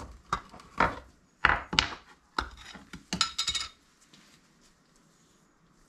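Metal parts and hand tools clinking and knocking against each other while a classic Mini's front swivel hub is being assembled: a run of about eight sharp clinks that stops about two-thirds of the way through.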